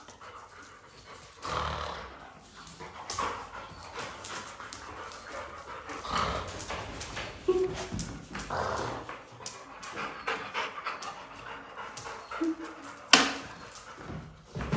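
A dog panting and breathing heavily in irregular bursts, with a couple of brief high whines. Near the end there is one sharp, loud sound.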